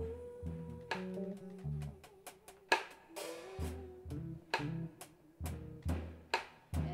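Instrumental passage of live music: an electric bass plays low notes and held, slightly wavering higher notes over a drum kit groove of kick, snare and cymbal hits.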